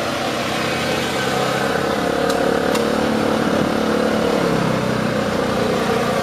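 Small engine of a miniature Porsche 911-style car running steadily as it drives, a little louder in the middle.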